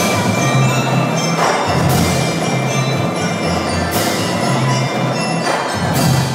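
Marching percussion band playing: bell-like mallet instruments carry a melody over drums, with strong accented hits about every two seconds.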